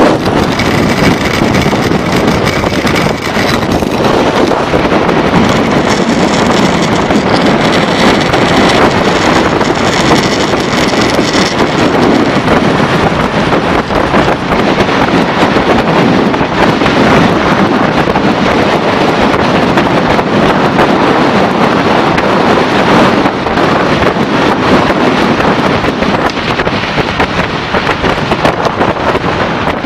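Loud, steady rushing of wind buffeting the microphone. A faint whine sits under it in the first few seconds and again from about six to eleven seconds in.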